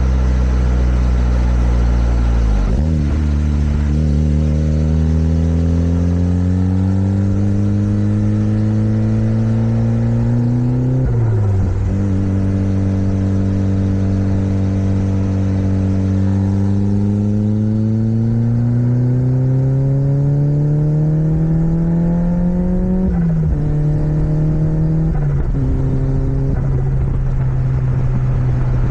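Turbocharged Toyota MR2 Roadster 1ZZ four-cylinder engine pulling under load, its pitch climbing slowly through the revs. The pitch drops sharply at each gear change, four times in all, with turbo flutter as the throttle is lifted.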